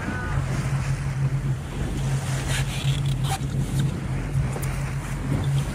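Small boat's outboard motor idling with a steady low hum, over wind and water noise. A few short hissing puffs come in the middle.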